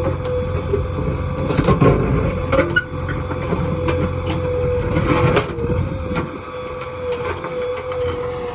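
JCB 3DX backhoe loader's diesel engine running under load with a steady whine, while the bucket knocks and scrapes against hard stone, the loudest knocks about two seconds and five seconds in.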